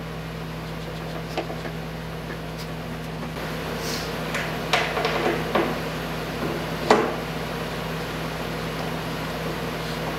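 A hand screwdriver driving a 2-inch wood screw through MDF into a cross dowel, giving a few short scrapes and knocks around the middle, over a steady low hum.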